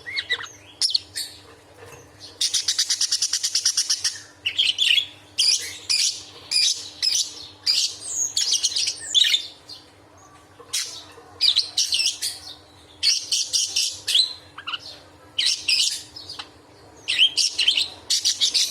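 Budgerigar (parkit) giving sharp, rapid chattering calls at full volume, the agitated 'angry' chatter. A fast buzzing rattle comes a couple of seconds in, followed by repeated bursts of harsh chirps.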